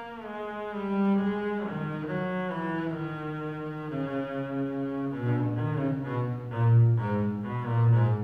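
Solo double bass played with the bow: a slow line of held notes stepping down in pitch, then shorter, quicker notes lower in the range in the second half.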